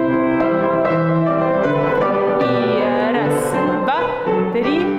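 Instrumental accompaniment music for a Russian folk dance exercise, starting abruptly and playing a melody over a steady accompaniment.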